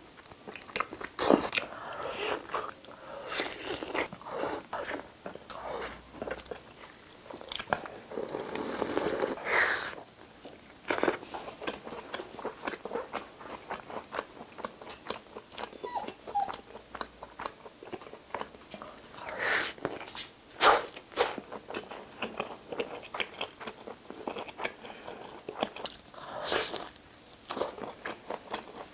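Close-miked eating: a person biting and chewing roast chicken with skin, then cheese-loaded pizza, wet chewing and mouth clicks with sharp crunchy bites scattered throughout.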